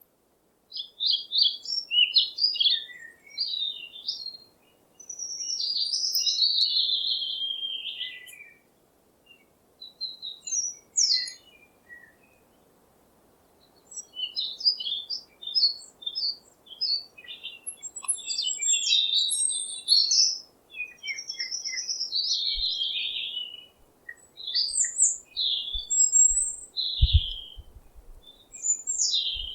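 Songbirds chirping and singing in bouts of quick, varied high-pitched notes and warbling phrases, with short pauses between them. A few faint low thumps come near the end.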